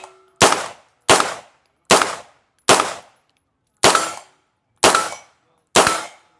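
Gunshots on a shooting range: seven single shots fired one at a time at a steady, unhurried pace, a little under a second apart, each with a short echoing tail.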